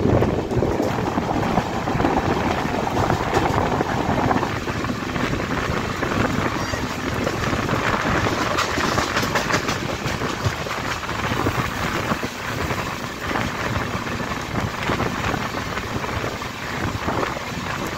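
Moving express train heard from aboard: a steady rumble of the coaches' wheels running on the rails, mixed with wind noise.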